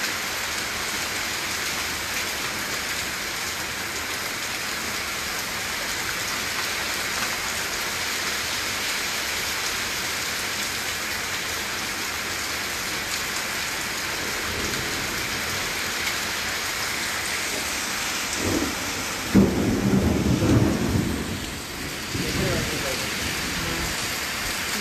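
Heavy rain pouring steadily onto wet ground during a storm. About nineteen seconds in, a sudden loud low rumble breaks in and lasts a couple of seconds.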